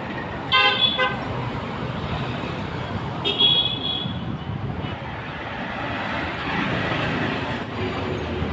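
Road traffic passing steadily, with vehicle horns tooting: a quick string of short toots about half a second in and another horn about three seconds in.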